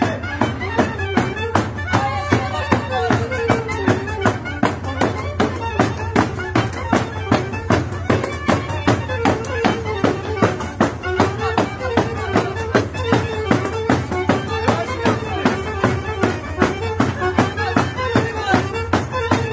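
Romanian bear-dance music played live: large bass drums beating a steady, fast rhythm under a melody on saxophone and clarinet.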